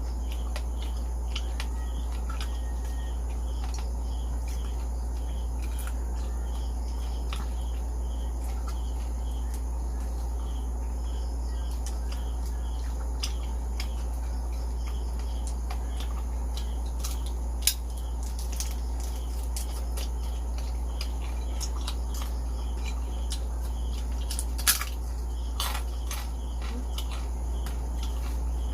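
A steady low hum with faint high chirps repeating at an even pace, like a cricket. A few sharp clicks and crackles come in the second half, two of them louder.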